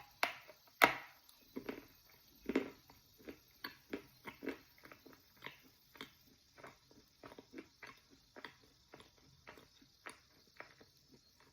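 Soaked chalk being bitten and chewed close to the microphone, its texture super greasy and creamy: a sharp bite about a second in, then steady wet chewing clicks about two a second.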